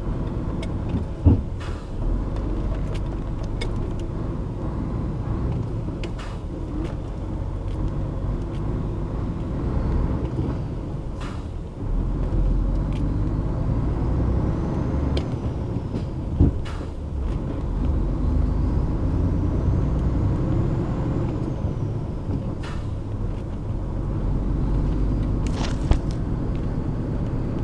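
DAF truck's diesel engine running while driving, heard from inside the cab as a steady low rumble. Scattered clicks and knocks sound over it, with a faint whistle rising and falling twice in the middle and a short hiss near the end.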